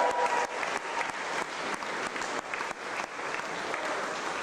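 Audience applauding: many hands clapping in a dense, steady patter, greeting a player named as an award winner.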